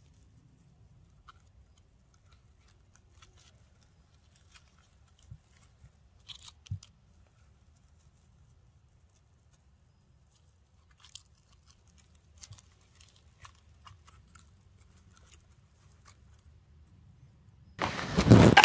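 Faint, scattered soft clicks and small handling sounds as peeled persimmons are pushed onto a string one by one. A burst of loud noise comes near the end.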